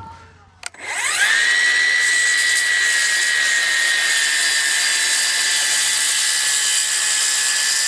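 Milwaukee cordless circular saw started about a second in, spinning up with a rising whine, then running steadily at full speed as it cuts through a wooden board, its pitch sagging slightly under the load.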